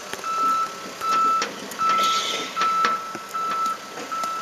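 Backup travel alarm on a John Deere 130G excavator, a single high beep repeating about once every 0.8 seconds, while the machine moves. Sharp clicks and scuffs of gloved hands breaking up soil clods sit close over it.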